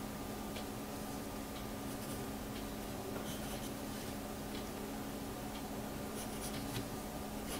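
Pencil strokes scratching on paper as a drawing is sketched: short, faint, repeated strokes. A steady low hum runs underneath.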